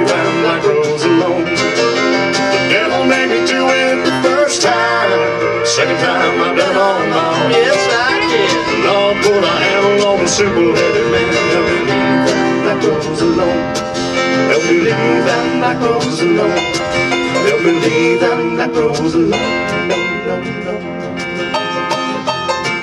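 Live country music led by a strummed acoustic guitar, with no sung words: an instrumental stretch of the song.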